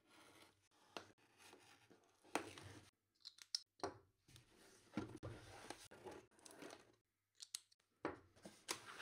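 Craft knife slitting packing tape on a cardboard shipping box, then the box being handled and turned over: a string of short scrapes, rustles and knocks with brief pauses between them.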